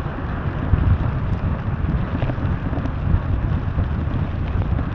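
Wind buffeting the microphone: a heavy, ragged rumble over a steady rushing noise.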